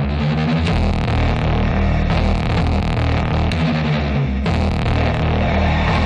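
Loud music with a heavy bass.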